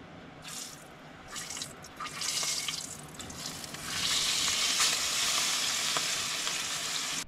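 Food frying in hot oil, a steady sizzle with scattered crackles that grows louder about four seconds in.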